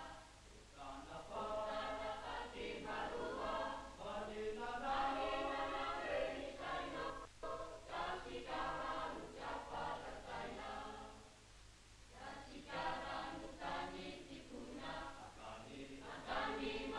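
A choir singing: several voices in long sung phrases, with short breaks between them.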